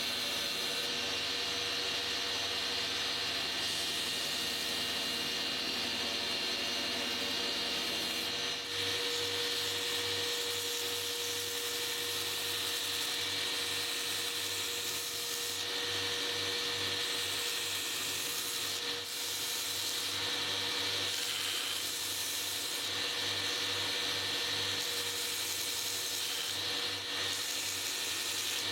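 A power tool running steadily, its sound shifting slightly about eight seconds in.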